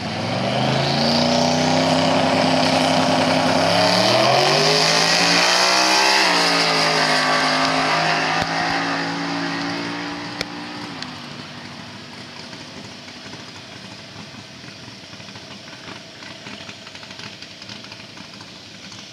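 Twin-turbo Ford Mustang GT's 4.6-litre two-valve V8 at full throttle on a drag-strip pass: the engine note climbs steeply, drops once about six seconds in at a gear change, then holds and grows fainter as the car pulls away. Near eleven seconds the engine note cuts back and only a faint distant hum remains.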